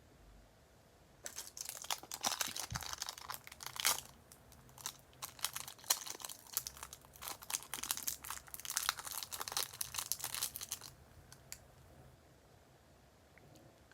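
Packaging being crinkled and torn open by hand, a dense, crackly rustle that starts about a second in and stops a few seconds before the end, followed by a few faint clicks.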